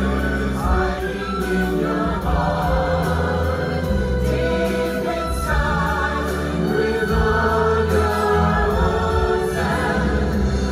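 Christmas show music with a group of voices singing together like a choir, steady and full throughout.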